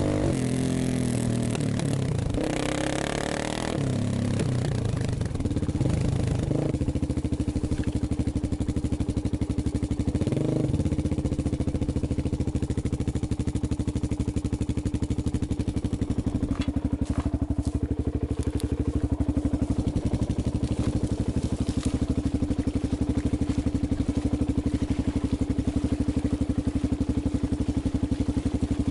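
Dirt bike engine revving unevenly for the first few seconds, then settling to a steady idle.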